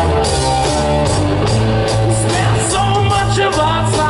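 Live rock band playing a hard rock song, with electric guitars and a drum kit under a male lead singer's voice.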